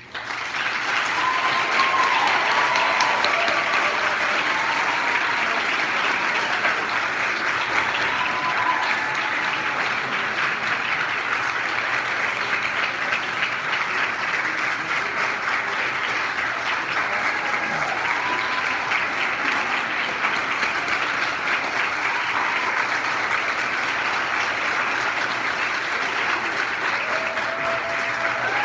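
Concert audience applauding a school band, the clapping swelling up within the first second as the last note dies away and then holding steady, with a few voices calling out above it.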